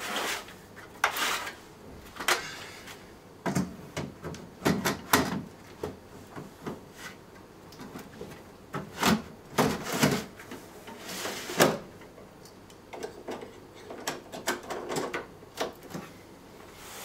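Irregular knocks, clicks and scrapes as the front grille panels and casing of an APC Smart-UPS RT battery pack are handled and taken off.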